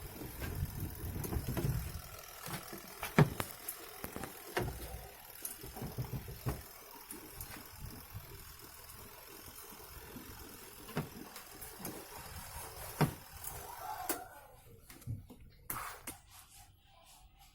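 Scattered sharp clicks and knocks from objects being handled, with a low rumble during the first two seconds.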